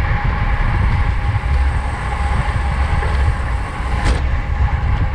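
Steady wind and road rumble picked up by a camera riding on a racing bicycle at speed.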